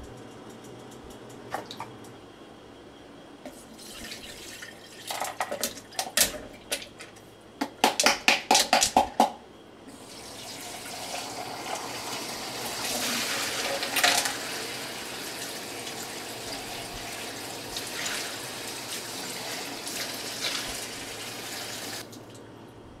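Kitchen faucet running into a stainless steel pot in a stainless steel sink: a steady rush of water starts about ten seconds in and stops abruptly near the end. Before it, a run of short, sharp knocks and clinks comes from about five seconds in, quickest just before the water starts.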